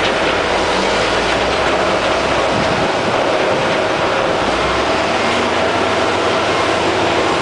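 Caterpillar D8N crawler dozer working under load, its diesel engine running steadily with the clatter of its steel tracks as it pushes a bladeful of overburden.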